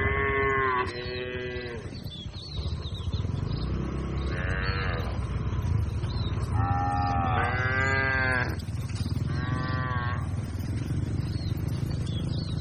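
Cattle mooing: about six short calls, each rising then falling in pitch, some coming back to back, over a steady low rumble.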